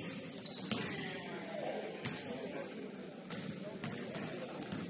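Basketball game on an indoor court: the ball bouncing a few times, sneakers squeaking, and players' voices in the background.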